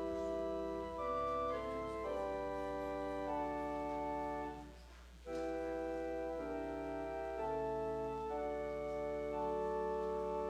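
Organ playing offertory music: slow, held chords that change every second or so, with a short pause between phrases about halfway through.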